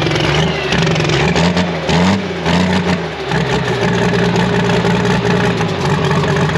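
Pro stock pulling tractor's diesel engine heard from the driver's seat. Its pitch rises and falls unevenly through the first three seconds, then drops to a steady lower run.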